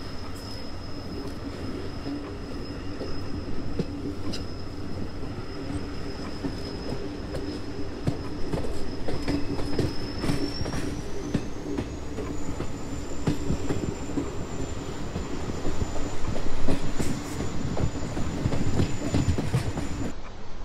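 A train running on rails: a steady rumble with scattered clicks from the track and a thin high whine that slides up in pitch about halfway through. The train sound cuts off abruptly just before the end.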